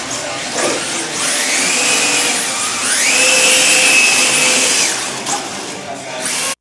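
Electric motors of radio-controlled drift cars whining under throttle. The pitch rises about a second in, dips briefly, climbs higher and holds, then falls away about two-thirds of the way through, over a steady hiss.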